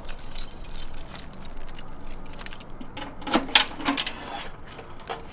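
A bunch of keys jangling, then several sharp metallic clicks and clanks about three to four seconds in as a metal letterbox on a chain-link fence is unlocked and opened, with one more click near the end.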